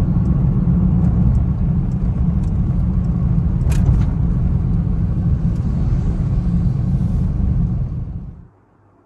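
Steady, loud low rumble, with a single brief click about four seconds in; it cuts off suddenly near the end.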